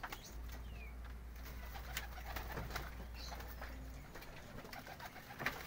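Domestic pigeons cooing, with a few light taps.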